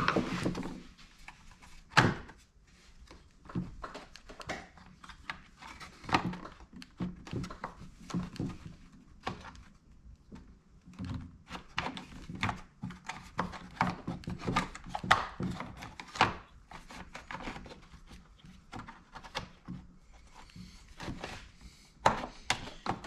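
Hand tools and parts of a Makita DCS6401 chainsaw being handled during disassembly: scattered, irregular knocks, clicks and clatter, with a few louder knocks.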